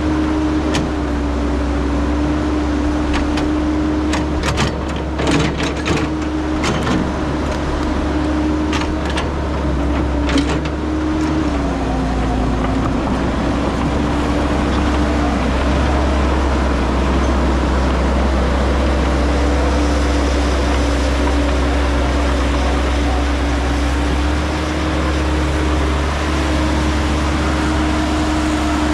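Caterpillar 312 hydraulic excavator's diesel engine running steadily as it digs, its note dipping once and recovering about twelve seconds in. Sharp clanks and knocks come through repeatedly in the first ten seconds.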